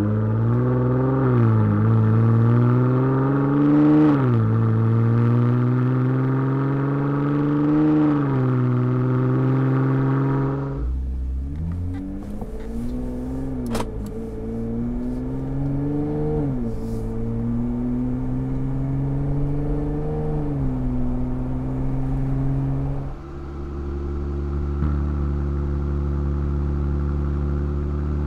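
Jeep Wrangler JL's 3.6-litre V6 breathing through a RedRock 4x4 high-clearance cat-back exhaust with a straight-through muffler, revved in three quick blips while parked and heard at the tailpipe. It then cuts to the same engine blipped three more times heard inside the cab, duller, and after another cut it idles steadily at the tailpipe.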